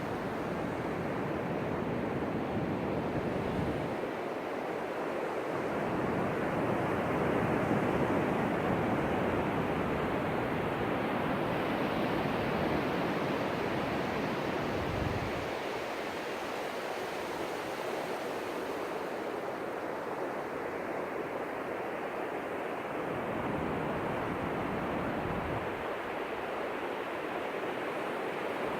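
Ocean surf breaking and washing up on the beach: a continuous rushing that swells and eases over several seconds, with low rumbles coming and going.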